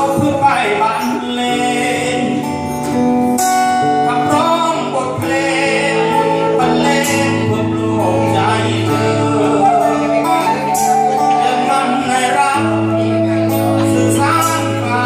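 Live acoustic band music: strummed acoustic guitar and congas, with a flute playing the melody.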